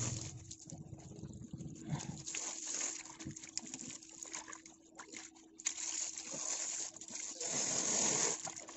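Hose water splashing onto koi filter wool and a wet concrete floor as hands squeeze and rinse the wool, the splashing rising and falling and loudest near the end.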